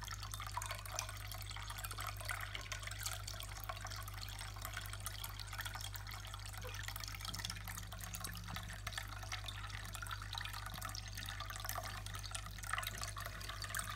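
PetSafe Drinkwell pet fountain running: water trickling and dripping steadily over a low, even pump hum. A cat laps at the water now and then, adding fine irregular ticks.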